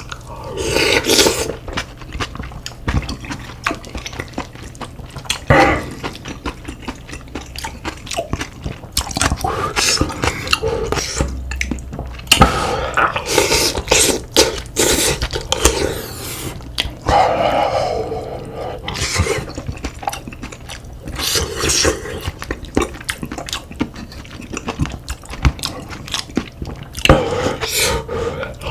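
Close-miked mukbang eating sounds: slurping and chewing spicy beef soup with rice, broken by frequent short clicks of a spoon and chopsticks against bowls.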